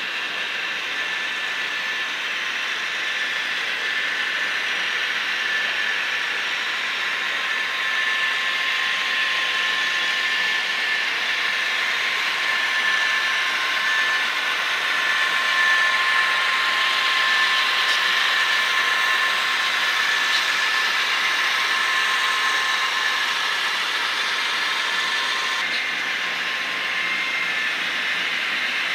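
Model diesel locomotives running on a layout's track, a steady whirring hum of motors and wheels with faint whining tones. It gets a little louder towards the middle as the locomotives pass close, and one whining tone cuts off near the end.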